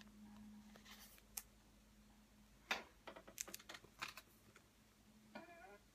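Near-quiet room with a low steady hum, broken by faint scattered clicks and taps, several in a quick cluster midway. A brief pitched sound comes near the end.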